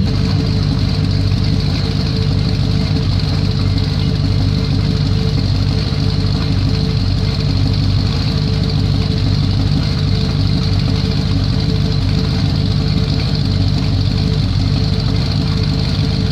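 A 355 cubic-inch small-block Chevrolet V8 idling steadily, with an even exhaust rumble and no revving.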